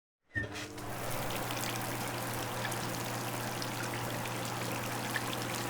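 Shower spray running steadily, water splashing onto a surface with scattered drips, starting abruptly about a third of a second in over a low steady hum.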